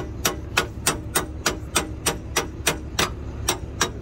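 Steady metallic clicking, about three clicks a second, from a hand tool being worked on the steel fifth-wheel hitch adapter of a tow truck.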